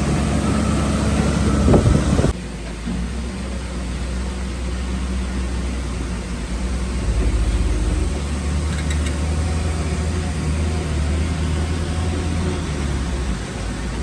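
Diesel engine of heavy earthmoving machinery running steadily. A sharp knock comes just before the sound drops abruptly, about two seconds in, to a quieter, lower engine sound that carries on.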